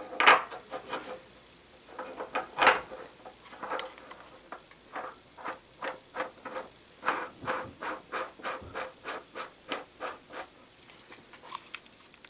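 Threaded steel nose piece being turned by hand onto a Bridgeport mill spindle, its threads scraping and clicking in short repeated strokes. The strokes come in scattered bursts at first, then settle into a quicker run of about three a second before stopping near the end.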